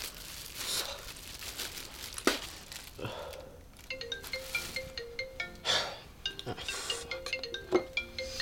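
A man retching into a plastic-lined wastebasket, the bag crinkling. About four seconds in, a smartphone starts ringing with a repeating tune of short notes.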